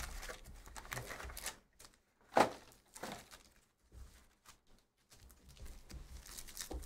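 Foil trading-card packs being lifted out of a cardboard hobby box and squared into a stack: crinkling and rustling of the pack wrappers, with one sharp knock about two and a half seconds in and a few softer taps after it.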